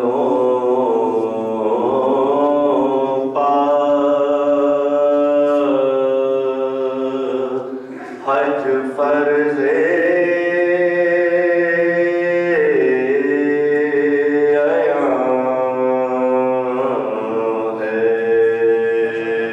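A man's solo voice chanting a slow, melodic recitation into a microphone, holding long notes that bend and waver, with a short break for breath about eight seconds in.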